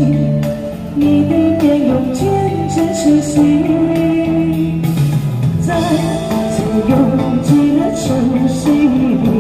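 Woman singing a slow Chinese pop ballad into a handheld microphone, amplified, over instrumental accompaniment.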